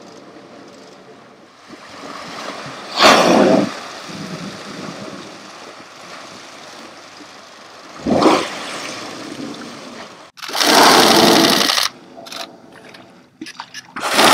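Humpback whales surfacing and blowing: short, loud rushing exhalations, one about three seconds in and another about eight seconds in, with a softer wash in between. A louder rush of noise about ten seconds in starts and stops abruptly.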